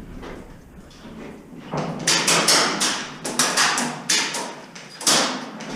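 Airsoft skirmish sounds: a run of sharp, irregular cracks and knocks from airsoft guns firing and BBs hitting hard surfaces. They start about two seconds in, after a quieter opening.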